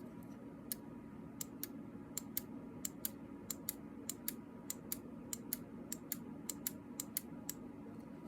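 A small trigger switch clicking as it is pressed and released over and over, mostly in quick press-and-release pairs about every half-second to second, driving the ammo counter's burst-fire mode. A steady low hum runs underneath.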